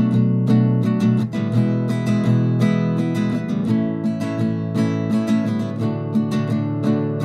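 Acoustic guitar music: chords strummed in a steady rhythm, several strokes a second.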